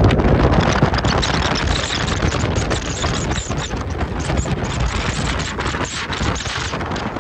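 Wind buffeting the microphone on the deck of a moving ferry, a loud crackling rush over the boat's steady running noise underway.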